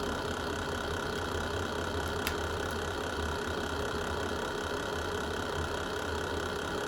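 Wood fire burning in a fireplace: a steady low rumble and hiss with a few small crackles, one sharper crack a little over two seconds in.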